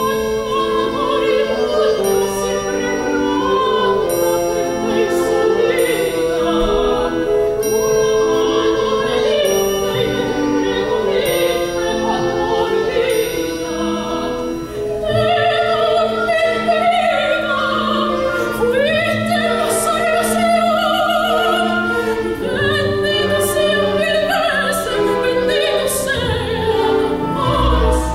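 Operatic soprano and tenor singing a zarzuela duet with vibrato, accompanied by a full symphony orchestra with strings.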